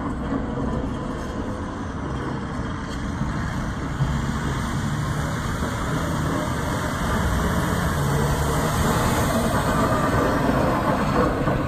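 Volvo A35F articulated dump truck's six-cylinder diesel engine running as the truck drives and turns, getting louder in the second half as it comes nearer.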